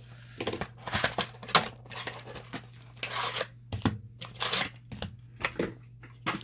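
Packaging of a sealed box of trading cards being torn open and crinkled: irregular ripping and crackling with sharp clicks, over a low steady hum.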